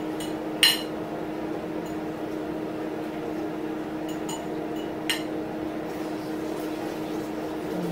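A few sharp clinks of a metal fork against a serving platter of spaghetti, the loudest about half a second in and another around five seconds, over a steady background hum.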